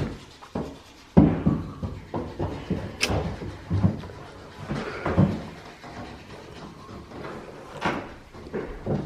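A string of irregular knocks and thumps from building materials and tools being handled, the loudest thump about a second in.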